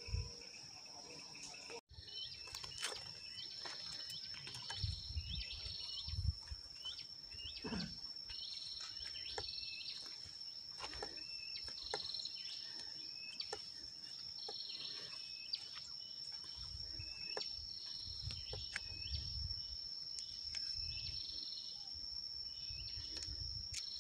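Insects droning steadily on one high pitch, with a short chirp repeating a little under once a second and scattered low rumbles and bumps underneath.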